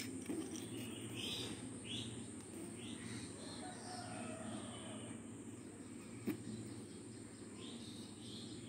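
Faint bird chirps, short downward-gliding calls scattered irregularly, over a steady low hum, with one sharp click about six seconds in.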